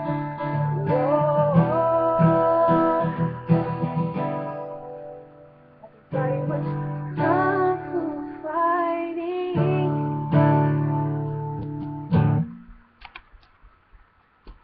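A woman singing over a strummed acoustic guitar. The music stops shortly before the end, leaving a few faint clicks.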